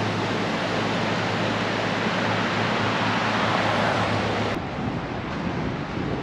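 Steady rushing noise of a wide, shallow river running over gravel riffles, with wind on the microphone. About four and a half seconds in it drops abruptly to a quieter, thinner hiss.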